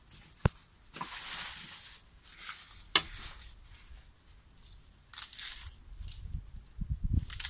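Dry garlic stalks and papery bulb skins rustling and crackling as they are stripped and cut from harvested garlic bulbs with a knife, in several irregular spells, with two sharp clicks, about half a second in and about three seconds in.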